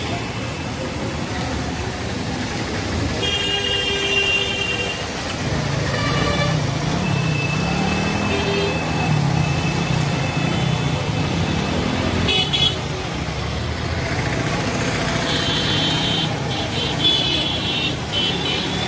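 Road traffic on a wet street: vehicle engines running under a steady hiss, with several high-pitched horn honks, long ones about three and six seconds in and again near the end, and a short one about twelve seconds in. A low engine drone wavers up and down in the middle.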